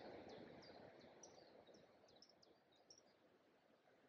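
Faint birdsong: a quick run of short, high chirps and downward-sliding notes for about three seconds, over a soft background hiss that fades away.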